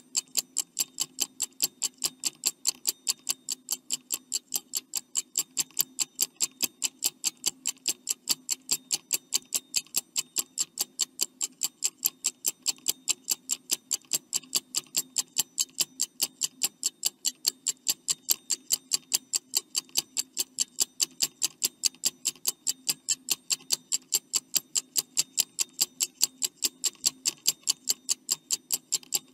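Clock ticking sound effect for a quiz countdown timer: an even run of sharp ticks, about three to four a second, over a faint steady low hum.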